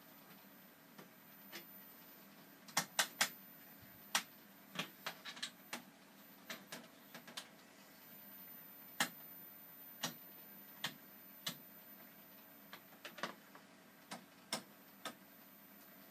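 Oscilloscope control knobs being turned, their rotary switches clicking from position to position: irregular sharp clicks, three in quick succession about three seconds in, then scattered single clicks. A faint steady hum lies underneath.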